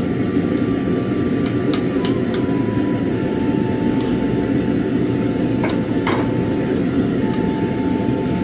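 Steady workshop machine noise with a faint high tone that shifts in pitch now and then, and a few light metallic clicks.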